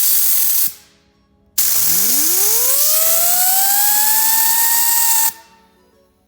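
Heater blower motor and fan from a first-generation Audi Q7 / VW Touareg / Porsche Cayenne, its bearing freshly oiled, spinning freely: a brief burst of running that cuts off, then about a second later it starts again, its whine rising in pitch over about two seconds with a rush of air, runs steadily, and stops suddenly about four seconds later.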